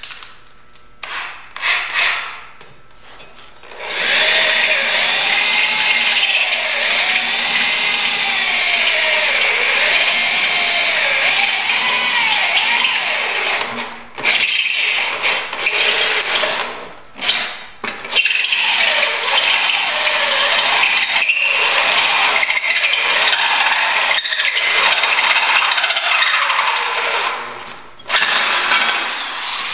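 Electric drill with a step drill bit boring a 7/8-inch hole through a steel exhaust header pipe: a loud grinding cut with a wavering squeal as the bit chatters in the metal. It starts about four seconds in, pauses briefly twice, and stops near the end, with a few clicks before it as the bit is set in place.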